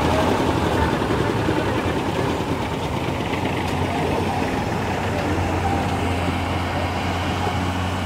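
Diesel engine of a Hyundai 220LC crawler excavator running steadily, a continuous low drone that grows stronger from about five seconds in.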